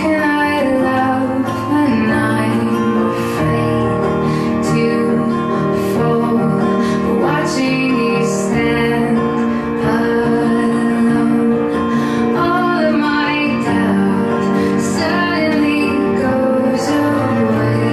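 Background music: a song with a female voice singing over guitar, steady throughout.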